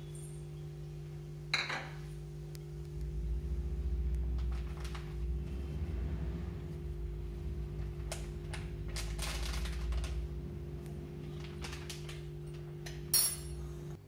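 Steel spoon and spice-powder packet handled at a kitchen counter: scattered light clicks and taps, with a sharp clink near the end, over a steady low hum.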